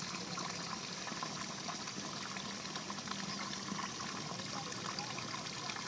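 Water trickling steadily in a small rice-field ditch, a faint even running sound.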